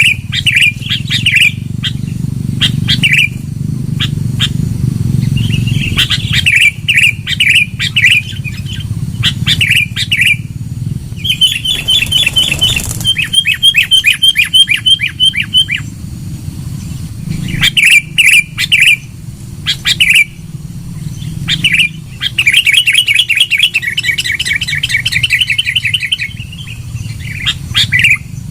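Sooty-headed bulbul (kutilang) calling loudly in bursts of rapid chattering notes and fast repeated trills. Phrases of one to four seconds follow one another with short pauses, over a steady low hum.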